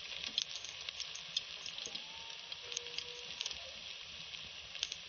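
Besan-battered chicken pieces deep-frying in hot ghee in a steel pot: a steady sizzle with scattered small pops and crackles.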